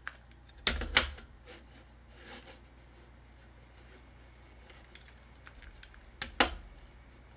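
Sharp clicks of a computer being worked: two pairs of clicks, about a second in and again about six seconds in, over low room tone.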